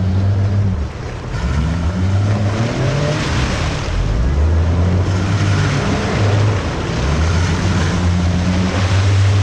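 Built off-road 4x4's engine revving and changing pitch under load, over a steady loud rushing noise.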